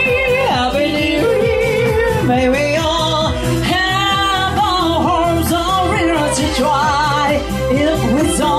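Live song: women singing into microphones, the melody held with a wavering vibrato, over an electronic keyboard accompaniment with a steady beat.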